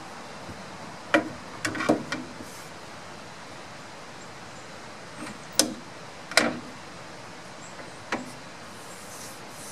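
Metal rip fence of a Black & Decker Firestorm table saw being set onto the saw's table and worked against the front rail: a handful of sharp metal knocks and clacks, a quick cluster about a second in and single ones later.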